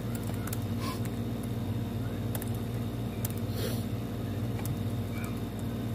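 Steady low hum and air rush of a running room fan, with a few faint clicks.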